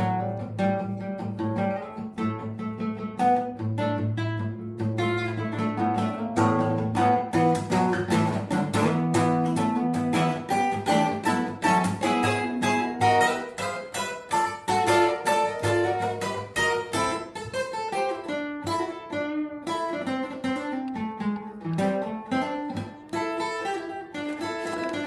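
Acoustic guitar music: a quick run of picked notes over a held low bass note, which drops out about halfway through.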